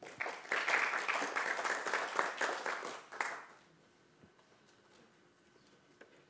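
Audience applauding for about three and a half seconds, then dying away.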